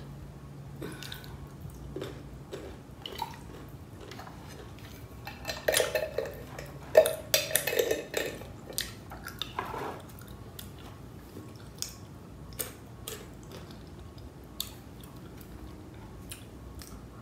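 A glass jar of pickled gherkins being handled: a plastic pickle lifter knocking inside the jar, then a cluster of louder clinks and scrapes as the twist-off lid goes back on. Scattered small clicks of eating follow.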